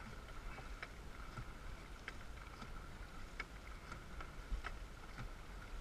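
Dragon boat paddles striking and pulling through the water in a steady rhythm, a short sharp splash with each stroke about every half second or so, over a low wind rumble on the microphone.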